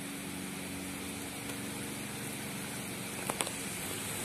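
Steady rain falling, with a low steady hum underneath and two sharp clicks in quick succession a little over three seconds in.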